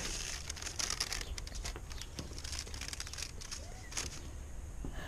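Faint rustling and light scraping from the rocket stove's parts being handled as the cast iron top plate is taken off, over a low steady hum.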